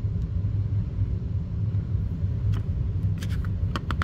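Room heater running with a steady low rumble. Several short crisp rustles from the glossy pages of a booklet being handled and turned come in the second half.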